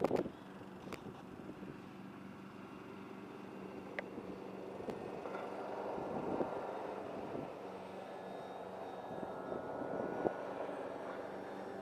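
Radio-controlled model biplane's motor and propeller droning steadily overhead, growing louder about six seconds in as it passes and easing off again.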